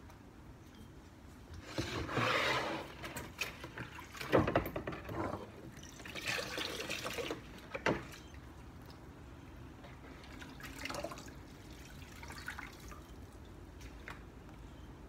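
Grey clay-laden water splashing and trickling as a hand scoops and stirs in a bucket of it, in several bursts of a second or so, with a sharp knock about eight seconds in and fainter trickles later.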